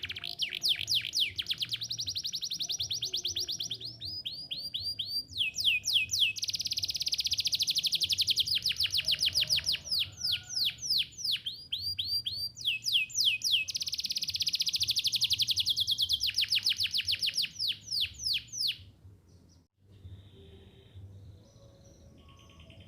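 Domestic canary singing: a run of fast trills, each a rapid string of repeated sweeping high notes, switching from one trill to the next. The song stops abruptly near the end, leaving only faint chirps.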